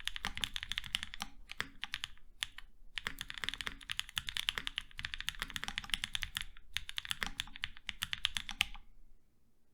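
Fast typing on a leaf-spring-mounted Nascent 65% custom mechanical keyboard with Gazzew Boba LT 68g switches, an FR4 plate and GMK keycaps: dense runs of keystrokes broken by brief pauses, stopping a little before the end.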